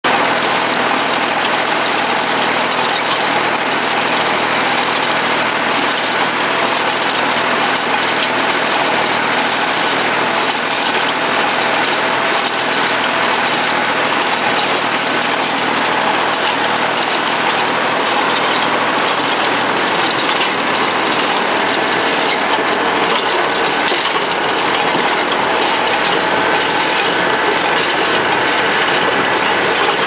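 Massey Ferguson 10 square baler running, driven through its PTO shaft by a tractor. The sound is a steady, loud mix of engine and machinery noise.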